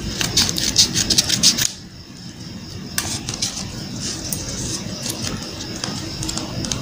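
Scissors cutting through folded paper, a quick run of crunching snips that stops abruptly about a second and a half in. After a short lull, quieter rustling and creasing as the paper is folded by hand.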